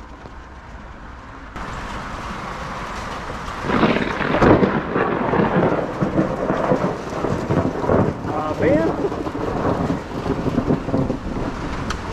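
Thunderstorm: steady rain with thunder rumbling and crackling, the thunder growing loud about four seconds in.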